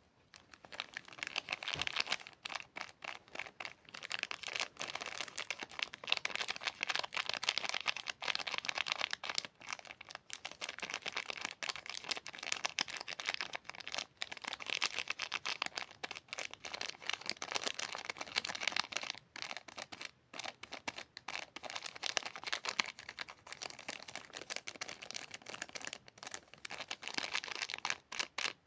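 Soap-bar wrappers crinkling and tearing as they are unwrapped by hand: a steady run of crackly rustling that eases off briefly now and then.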